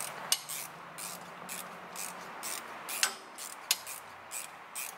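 A hand wrench turning bolts up through rubber-lined holes in a trailer's MorRyde independent suspension: irregular sharp metallic clicks and clinks, a few a second.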